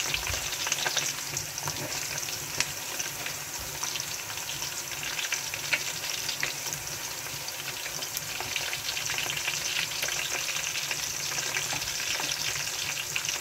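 Chopped onions sizzling in hot vegetable oil, a steady hiss dotted with many small crackles, while a spatula stirs them in the pot.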